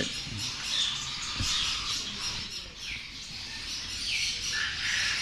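Many small caged birds, such as finches, chirping and calling at once: short high notes overlap throughout, some sliding down in pitch.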